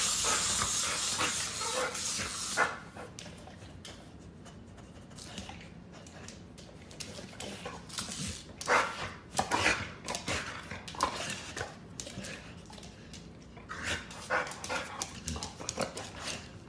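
Pit bull playing with and sniffing at a small stuffed toy, making short huffs and snorts at irregular moments. A steady hiss covers the first few seconds.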